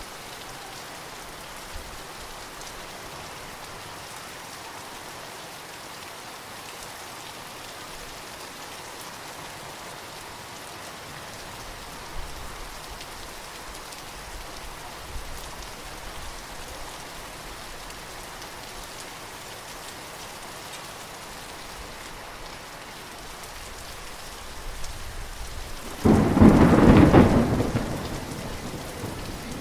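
Steady rain falling through a thunderstorm, with faint low rumbles of thunder midway. Near the end comes a loud thunderclap that rumbles on as it fades.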